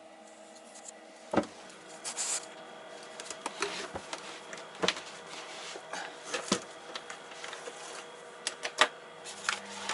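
Hand sanding with fine 1200-grit wet-and-dry sandpaper, rubbed dry over a metal exhaust face: a faint rubbing hiss broken by scattered light clicks and knocks of handling, over a faint steady hum.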